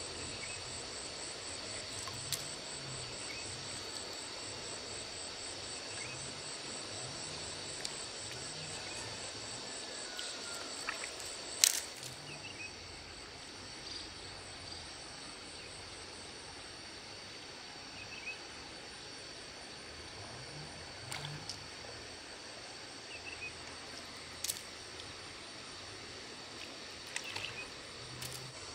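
Steady high insect chirring over a soft outdoor hiss, broken by a few scattered sharp clicks and knocks, the loudest about twelve seconds in.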